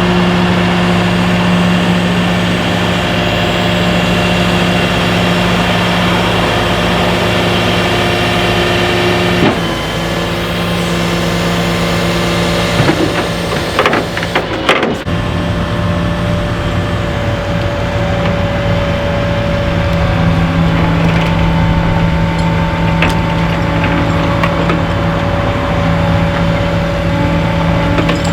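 A vehicle engine running at a steady speed with a constant hum. About ten seconds in the tone briefly changes, a few knocks follow a few seconds later, and then the hum settles at a slightly different pitch.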